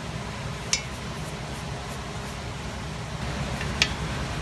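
Steady low background hum, like a fan or air conditioning, with two short sharp clicks, one about a second in and one near the end.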